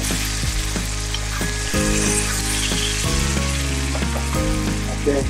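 New York strip steak frying with onions and garlic in butter in a cast-iron skillet, sizzling steadily as it is basted with a metal spoon.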